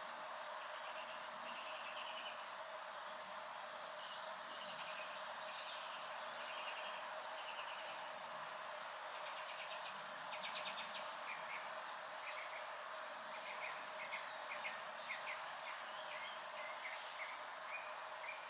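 Short chirps and rapid pulsed trills from small calling animals, repeating and growing busier about halfway through, over a steady even hiss.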